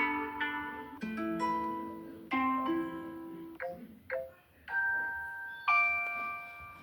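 A series of iPhone notification tones played one after another: short chime- and bell-like melodic tones and plucked notes, each starting sharply and ringing away, with a new one beginning about every one to two seconds.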